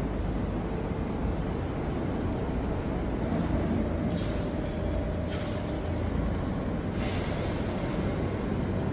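Steady workshop background noise: a low rumble with a hiss that swells twice, about four seconds in and again around seven seconds in.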